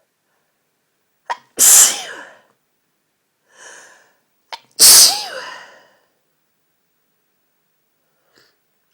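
A woman sneezing twice, about three seconds apart, in a sneezing fit. Each loud sneeze comes right after a short sharp catch of breath, and there is a softer in-breath between the two.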